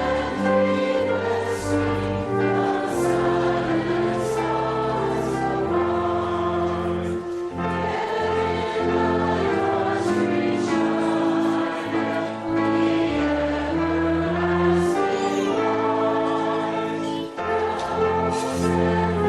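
Choir singing a slow piece of church music in long held chords that change every second or two.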